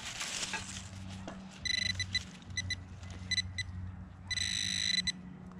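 Handheld metal-detecting pinpointer probing a dig hole and sounding its buzzing electronic tone: a few short beeps starting about a second and a half in, then a steady tone held for nearly a second near the end as the probe comes onto the buried metal target.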